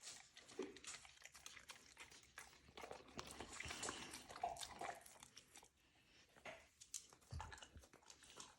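Faint, wet chewing and smacking of mouthfuls of cake being eaten, made up of many small clicks and crackles.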